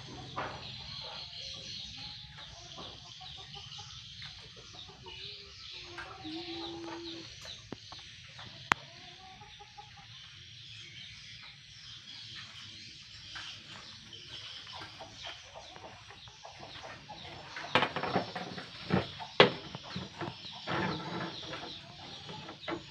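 Chickens clucking in the background, with a lone sharp click about nine seconds in and a run of loud, sharp knocks near the end.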